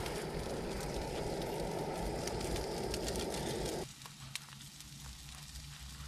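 A camping gas stove burner running with a steady hiss, shut off abruptly about four seconds in, leaving faint scattered crackles.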